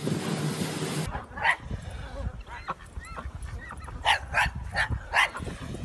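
For the first second, wind and water noise rush past a speeding motorboat. Then a small puppy gives a string of short, high yips and barks, some with a whimpering rise and fall in pitch.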